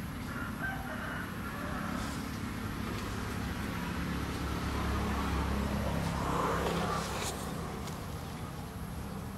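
Low rumble of a passing vehicle's engine, swelling a few seconds in and easing off near the end.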